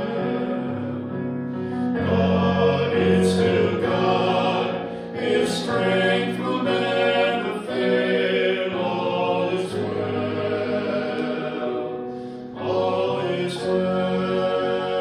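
A small mixed group of voices singing a slow worship song in harmony, accompanied by an electric keyboard.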